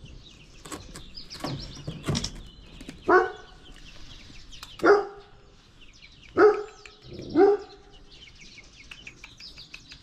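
A dog barks four times: single short barks a second or more apart. Faint songbird chirping runs underneath.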